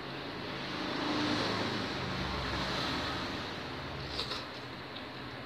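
A motor vehicle passing by, its engine and road noise swelling about a second in and slowly fading. A light clink of cutlery against a ceramic bowl about four seconds in.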